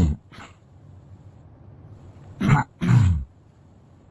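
A man clearing his throat: two short, rough bursts about half a second apart, past the middle, each dropping in pitch.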